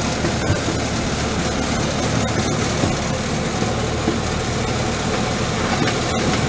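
Engine of a Chance Rides miniature train locomotive running with a steady low hum as the train rolls along, with a few sharp clicks from the track and cars.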